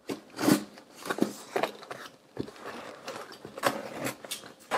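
Utility knife slicing through the packing tape and cardboard of a small mailer box: a string of short, irregular scratchy cuts, with some rustling of the cardboard flaps.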